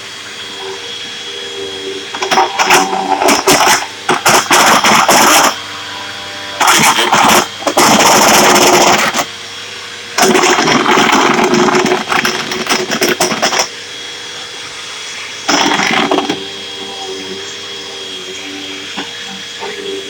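Red upright Hoover vacuum cleaner running, with four loud stretches of a few seconds each, starting and stopping abruptly, as it is worked over carpet sucking up bird litter and soft black licorice.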